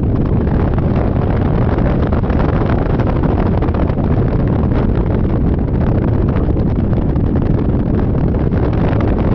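Heavy wind buffeting the microphone on a moving Yamaha Majesty 400 scooter: a loud, steady, deep rush with no let-up.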